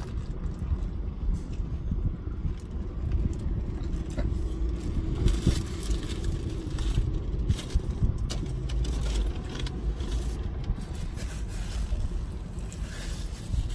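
Chewing and the rustle of a paper burger wrapper as a cheeseburger is bitten and eaten, over a steady low rumble of car cabin noise.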